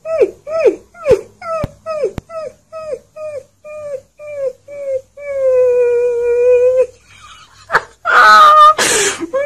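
Alaskan Malamute puppy howling: a run of short yips falling in pitch, a few each second, then one long steady howl about five seconds in. A louder, rougher burst of sound follows near the end.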